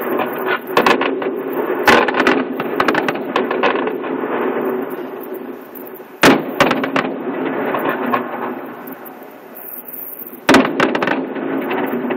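Aerial fireworks bursting: three loud sharp bangs, about two, six and ten and a half seconds in, over a dense run of smaller pops and crackles.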